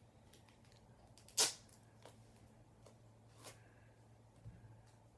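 Duct tape being torn and handled: one sharp short crackle about a second and a half in, then a few fainter ticks, over a low steady hum.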